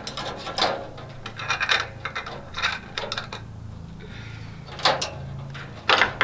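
Clips being taken off a wooden gate's latch hardware: a run of sharp clicks and clinks, with the loudest knocks near the end.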